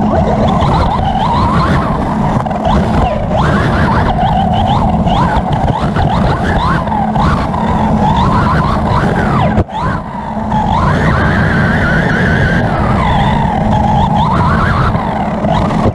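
Onboard sound of a 1:8 scale electric R/C buggy racing on dirt. The Hobbywing 3600kv brushless motor and drivetrain whine rises and falls with the throttle over a steady rumble from the chassis and tyres. The sound dips for an instant a little past halfway.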